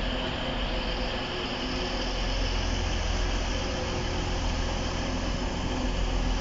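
Diesel train running, a steady low rumble under a hum and hiss.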